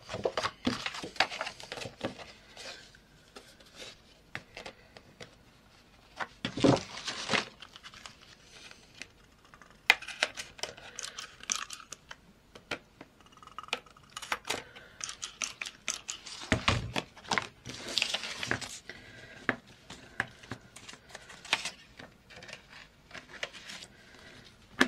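Paper pages being handled: rustling, sliding and light taps of paper against paper. There is a louder rustle about seven seconds in and a dull thump at about seventeen seconds.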